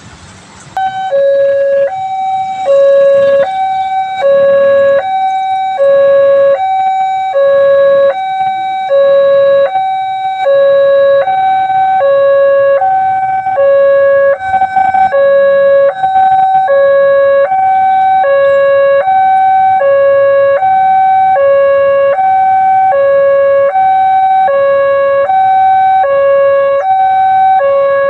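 Railway level-crossing warning alarm sounding, a loud electronic two-tone hi-lo siren switching back and forth between a higher and a lower note, each held just over half a second. It starts about a second in and repeats evenly, signalling that a train is approaching the crossing.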